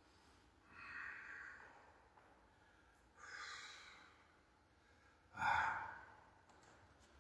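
Faint, slow human breathing: three long, hushed breaths about two seconds apart, the third, a little after five seconds in, louder and starting sharply.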